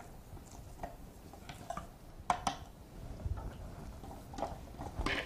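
Light, scattered clicks and knocks of a small blender jar being handled and lifted off its base.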